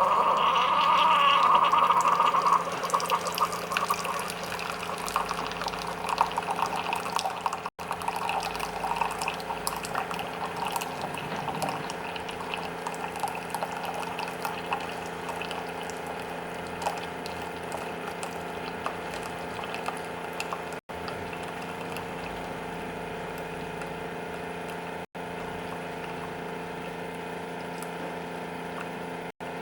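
Keurig K-Select single-serve coffee maker brewing a travel-mug-sized cup. It starts loud as it kicks in, then coffee pours and drips into the cup over a steady machine hum, the pouring fading gradually while the hum goes on.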